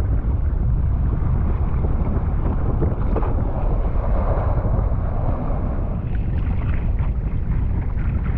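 Steady wind noise buffeting a camera microphone at the sea surface, with water washing and splashing around it.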